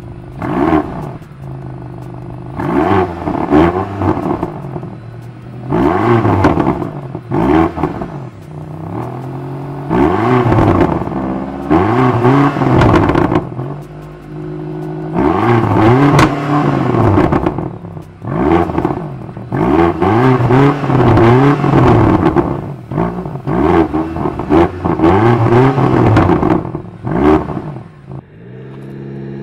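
BMW XM's twin-turbo V8 being revved at a standstill in a series of short blips, each rise in pitch falling straight back to idle, with occasional sharp pops from the exhaust.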